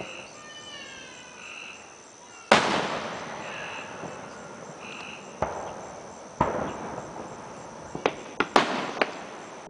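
Aerial fireworks shells bursting: one loud bang about two and a half seconds in with a long rumbling echo, two more bangs a few seconds later, then a quick run of sharp cracks near the end. Insects chirp faintly in the gaps.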